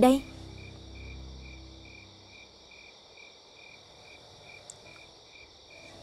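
Night insects, crickets, chirping: a steady high trill with a separate chirp repeating about twice a second. A low hum fades out over the first two seconds.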